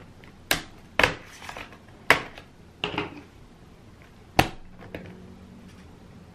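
Bottom case of an Acer Aspire One Cloudbook 11 laptop being pried off its palm rest with a flat metal pry tool: its plastic retaining clips snap loose one after another, about six sharp clicks spread over several seconds.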